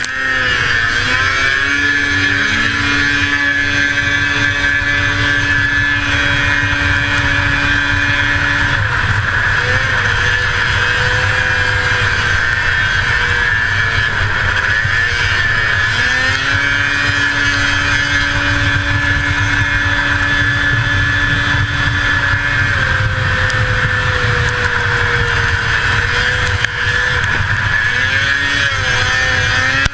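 1981 Arctic Cat El Tigre 6000's 500cc two-stroke snowmobile engine running hard in a race. It holds a steady high pitch for long stretches, and its pitch dips and climbs again twice as the throttle eases and opens: about ten seconds in, and near the end.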